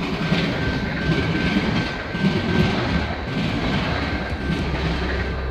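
Manifest freight train's cars rolling along the track: a steady rumble with wheel clatter on the rails and a faint steady high tone.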